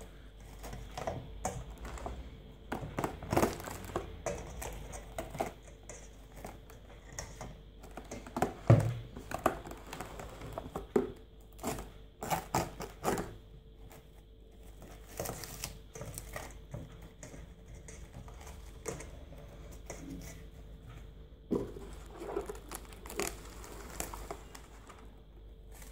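Plastic cling film being pulled from its boxed roll and stretched over a glass bowl, crinkling and rustling with irregular sharp crackles, the loudest about nine seconds in.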